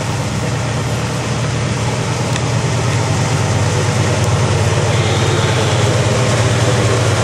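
Diesel freight locomotives of a CSX train, GE C40-8W units, running as the train approaches: a steady low engine drone that slowly grows louder.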